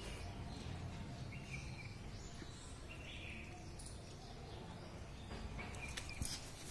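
Quiet background ambience: a steady low rumble with a few faint, short high chirps in the first half. A few light clicks come near the end.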